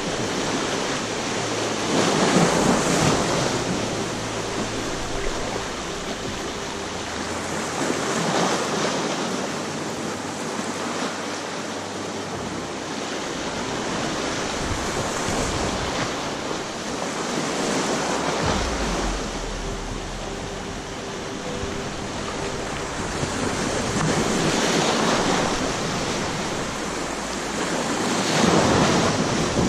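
Small sea waves washing in over a rocky shore, the surf swelling and falling back every few seconds, with wind buffeting the microphone.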